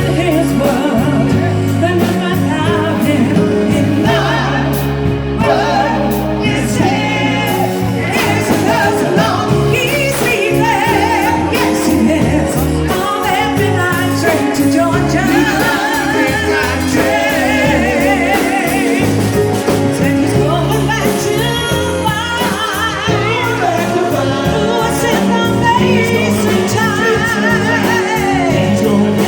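A song with singing over instrumental backing; the sung notes waver with vibrato.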